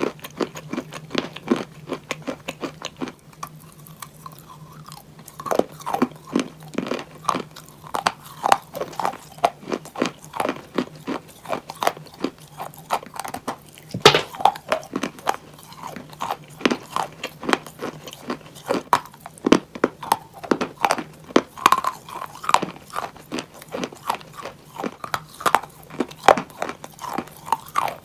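Pieces of chalk bowl being bitten and chewed: a dense run of dry crunches, with a short lull about three seconds in. A faint steady low hum runs underneath.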